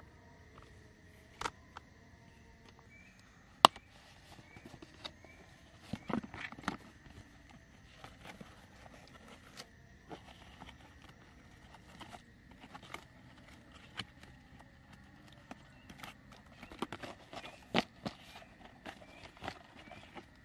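Camp gear being handled: irregular light clicks, taps and knocks of a folding camp table's metal frame and of flat hard gear pieces, with one sharp click a little under four seconds in and busier handling around six seconds and again near the end. A faint steady high tone runs underneath.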